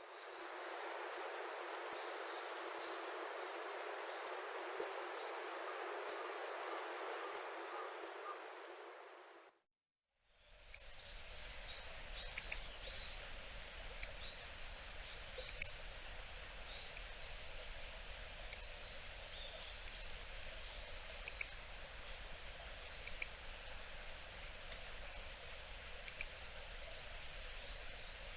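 Hawfinch giving short, sharp, high-pitched call notes. About nine come in the first nine seconds, several in quick succession. After a brief silence the calls go on singly, roughly every second and a half.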